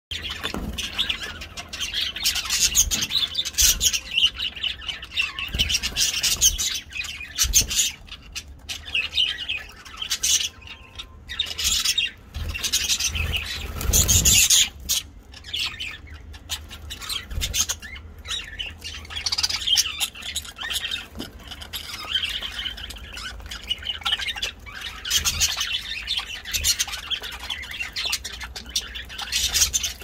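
Several budgerigars chattering with fast, overlapping chirps and squawks, with a few dull knocks mixed in.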